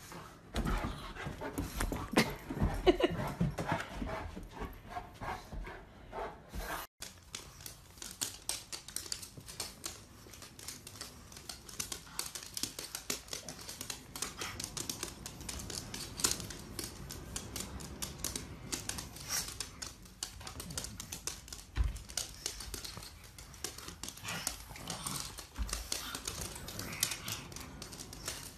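A pug panting, with many quick light clicks running through it. The sound breaks off sharply about seven seconds in and starts again.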